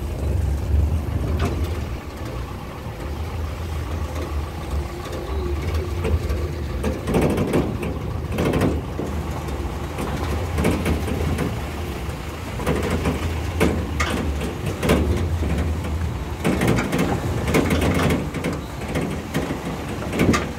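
A vehicle engine runs at low revs as the vehicle drives slowly over a rough, rutted dirt track. Knocks and rattles from the bumps come in clusters through the middle and latter part.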